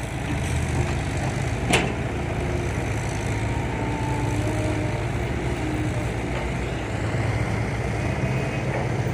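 Kobelco SK120-5 excavator's Isuzu diesel engine running steadily under load while digging, with one sharp metallic clank about two seconds in.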